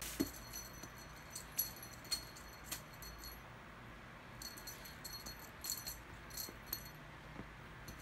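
A small jingle bell jingling in quick shakes as a Siamese cat pounces and scrambles on a quilt. The jingling comes in two bouts, one at the start and another from about four and a half seconds in.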